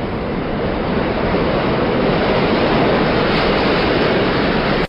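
Train running past: a steady rushing rumble that grows louder and cuts off suddenly at the end.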